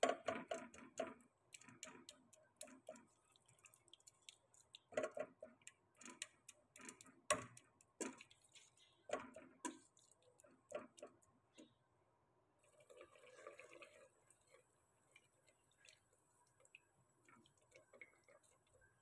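A plastic spatula stirring thick masala in a metal pot: irregular soft knocks and scrapes against the pot's sides and bottom, with a longer scrape about two-thirds of the way through.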